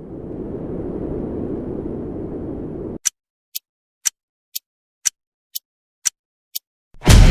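Edited intro sound effects. A low rumbling noise swells and cuts off abruptly about three seconds in. Then clock ticks for a countdown: eight sharp ticks, about two a second. Near the end a loud music hit comes in.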